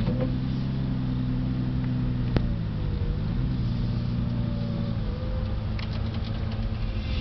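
The 2004 Lamborghini Gallardo's V10 engine running steadily under way in first gear, heard from inside the car, with a short dip and recovery in pitch about three seconds in. There is one sharp click a little before the dip.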